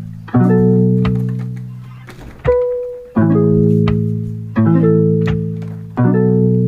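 Background music: slow plucked-string chords, each struck and left to ring and fade, a new one every second or so, with a single higher note in between.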